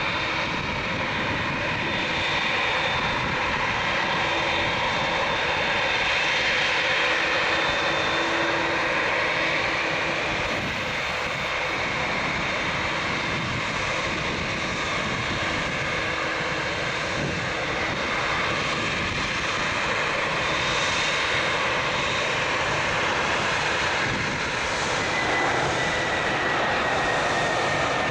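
Jet airliner engines running steadily with a high whine; near the end a whining tone slowly falls in pitch.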